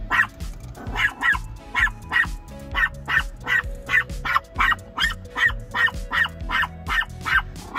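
Maltese dog barking over and over in short, high yaps, about two a second, worked up at the person at the window.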